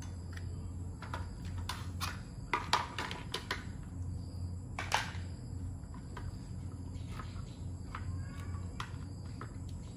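Scattered clicks and knocks of tools and parts being handled during a snowmobile light-housing repair, over a steady low hum; the sharpest knocks come a few seconds in.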